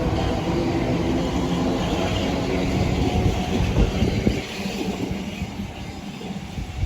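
Southeastern Class 395 'Javelin' electric multiple unit pulling out of the platform: rumble of wheels on rail with the hum of its traction motors, loud for about four seconds and then fading as it moves away.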